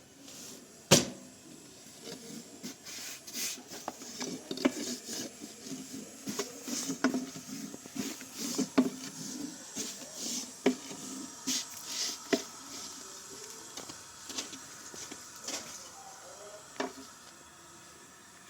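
Irregular light knocks and taps, with one sharp knock about a second in.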